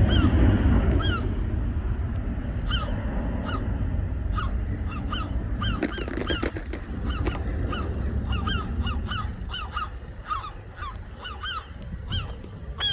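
Seagulls giving rapid, repeated short alarm calls, several birds overlapping, thickest in the second half, over a steady low rumble. The gulls are mobbing an intruder, which the filmer suspects means a chick nearby.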